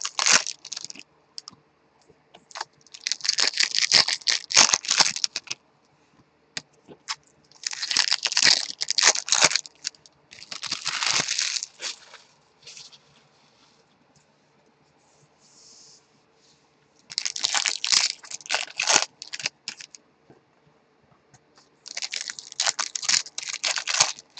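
Foil wrappers of trading-card packs crinkling and tearing as the packs are opened by hand. The crackle comes in bursts of a second or two, about five times, with quiet gaps between them.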